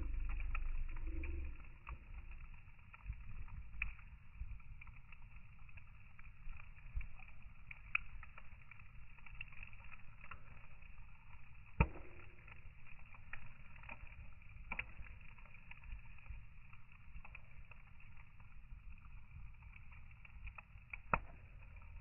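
Wood logs burning, with irregular crackles and small pops throughout and two sharper, louder pops, one about halfway through and one near the end. A low rumble is heard in the first second or so.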